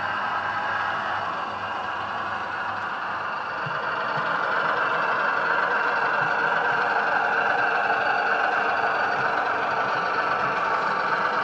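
LokSound 3 sound decoder in a Bachmann OO gauge Cravens Class 105 DMU model playing recorded diesel railcar engine sound through the model's small speaker as it runs along the track. The sound gets louder about four seconds in.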